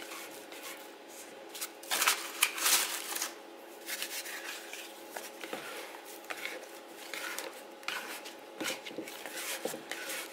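Irregular paper rustling and crinkling with soft pressing as hands work a sticky bread dough in a bowl through a sheet of baking paper, knocking the gas out of the risen dough; the loudest rustling comes about two to three seconds in.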